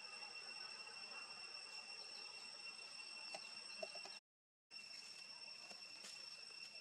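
Faint, steady high-pitched drone of insects, with a few soft clicks and then a break of about half a second a little past the middle.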